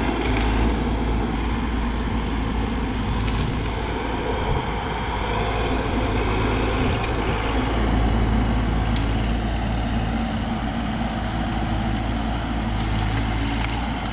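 Bobcat E42 mini excavator's diesel engine running steadily, with a few faint knocks over it.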